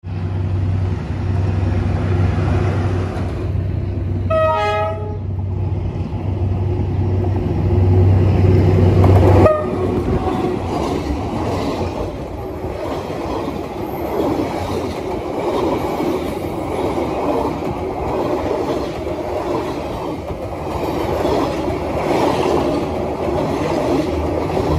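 D19E diesel-electric locomotive and its train: a steady low diesel engine drone with a short horn blast about four seconds in. From about ten seconds on, the rumble and repeated clatter of passenger-car wheels rolling past close on the rails.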